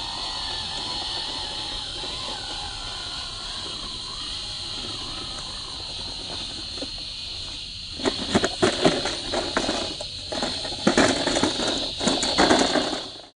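A steady high insect drone, like cicadas, runs throughout. From about eight seconds in, a run of irregular crunches and knocks comes as the small 1/18-scale RC crawler's tyres and chassis scrabble over rock and roots.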